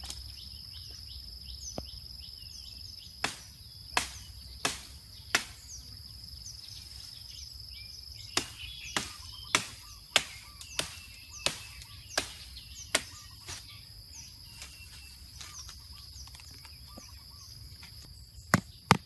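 A machete chopping at a long green pole to trim it: about a dozen sharp chops in two runs, one or two a second, over a steady high insect drone. A few louder knocks come right at the end.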